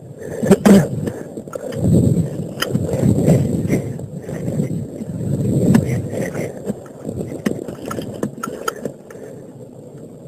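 A single rifle shot about half a second in, the loudest sound. It is followed by several seconds of uneven rumbling noise on the microphone with scattered clicks as the rifle and camera are swung about, fading near the end.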